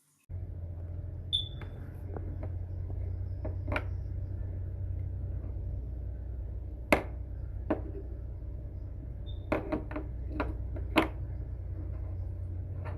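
A steady low hum starting suddenly just after the start, with a dozen or so short clicks and light knocks scattered over it, the sharpest about seven seconds in and a cluster between nine and eleven seconds.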